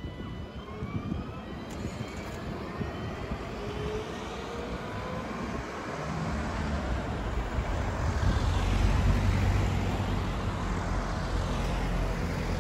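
Alstom Citadis 305 tram pulling away, its traction motors giving a faint rising whine as it accelerates off. From about halfway through, a louder road vehicle's engine builds up and passes close by; this is the loudest sound.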